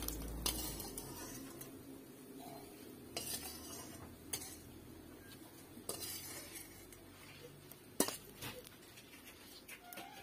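Metal ladle and steel cookware clinking and scraping: a handful of scattered sharp clinks, the loudest about eight seconds in, over a faint sizzle of hot oil in the kadai.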